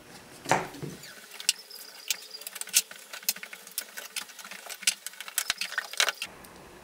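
Metal F-style bar clamps being loosened and handled on a workbench: an irregular run of sharp clicks and light metallic clinks, with a louder knock about half a second in.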